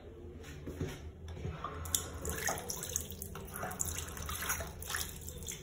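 Water running from a two-handle sink faucet into the basin, starting about two seconds in as the handle is turned. A couple of soft knocks come before it.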